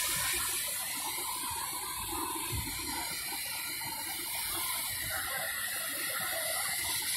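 Fire hose spraying water onto a burning car, a steady noise of water spray with no breaks.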